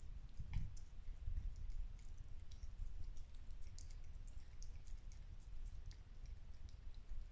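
British shorthair cat licking a creamy treat from a squeeze tube: faint, irregular wet clicks of tongue and mouth, over a low rumble.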